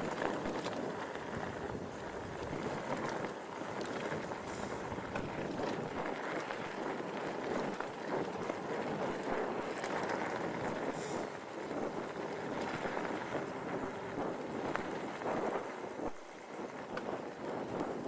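Mongoose Tyax mountain bike riding over a rough dirt track: steady rumble of the knobby tyres on the ground with constant small rattles and ticks from the bike, mixed with wind on the microphone. The noise eases briefly near the end.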